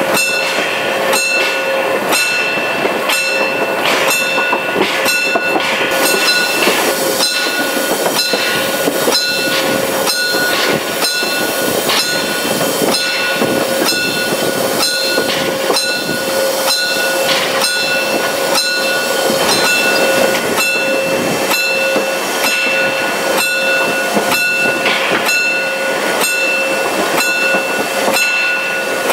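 Narrow-gauge Saxon IV K steam locomotive running under steam: exhaust chuffing in a steady beat of about two a second over running and rail noise, with a ringing high tone that comes and goes.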